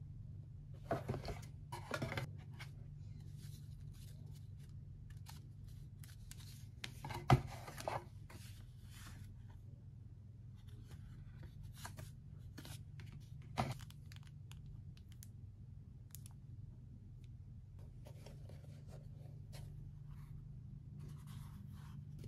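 Unboxing handling sounds: a cardboard box, a folding leather-look Burberry glasses case and a thin plastic sleeve being lifted, pulled and opened. They make scattered rustles and soft knocks, the loudest about seven seconds in and another about halfway through, over a steady low hum.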